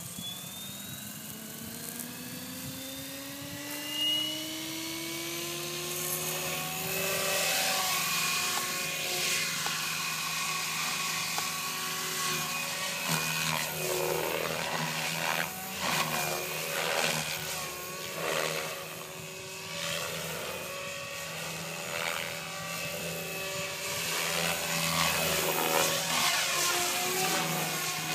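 SAB Goblin 500 electric RC helicopter with a Kontronik Pyro motor spooling up, its whine rising in pitch over the first seven seconds or so. It then flies aerobatics at low head speed, the rotor and motor sound surging up and down as it manoeuvres.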